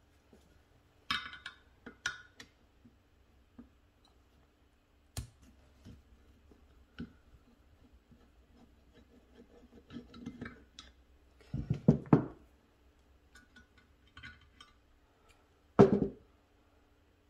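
Light clinks and knocks of a screwdriver and small brass jets against a Rochester 4GC carburetor body and the workbench while the secondary jets are unscrewed. The sounds are sparse, with a cluster of knocks about twelve seconds in and a single louder knock near the end.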